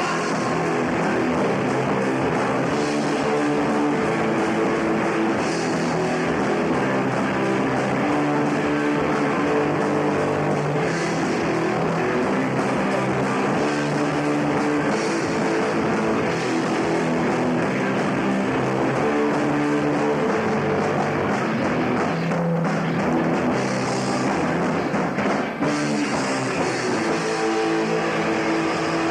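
Punk rock band playing live: distorted electric guitar chords over bass and a drum kit, loud and steady.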